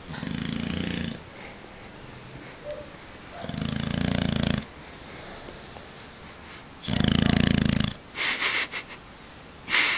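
A sleeping dog snoring: three loud, rasping snores about a second long each, roughly three and a half seconds apart, followed near the end by a few shorter, breathy, wheezy sounds.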